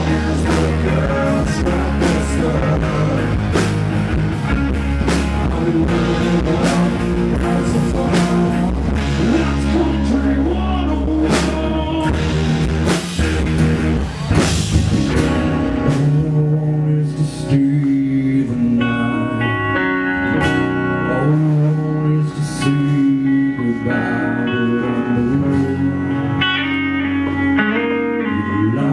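Live country-rock band playing on amplified stage sound: drums, electric and acoustic guitars and bass. About halfway through it thins out to held, ringing guitar notes over the bass with only occasional drum hits.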